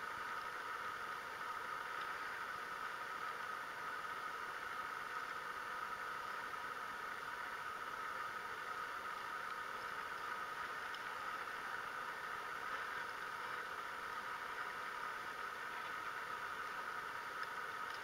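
Steady faint hiss with no distinct events, sitting in the middle of the pitch range with little low rumble: low-level background noise.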